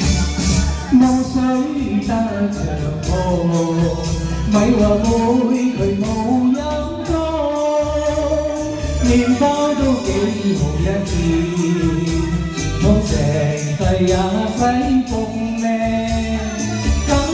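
A man singing karaoke into a handheld microphone through the PA, over a recorded backing track with a steady beat.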